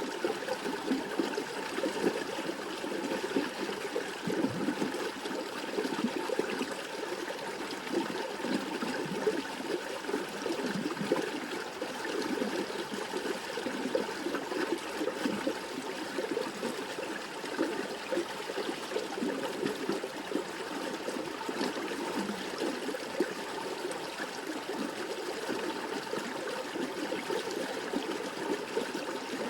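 River water running steadily.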